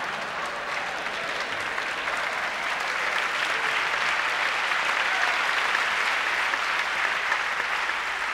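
Theatre audience applauding, dense steady clapping that holds for several seconds.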